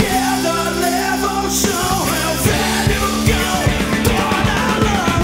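A rock song playing back in full: a sung lead vocal over drums and sustained low notes.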